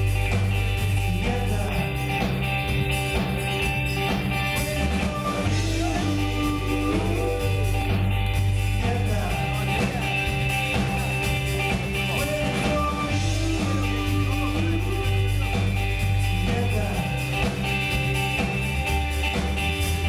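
Live rock band playing a song: electric guitars, bass guitar and drum kit, with a sung lead vocal over a bass line that steps between held notes.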